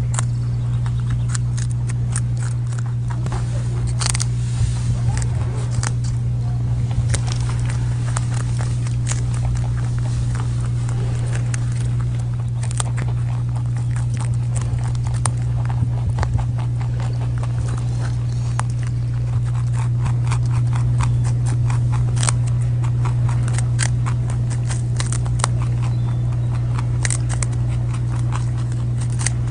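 Rabbits biting and chewing crunchy raw cabbage: quick crisp crunching clicks, several a second, over a steady low hum.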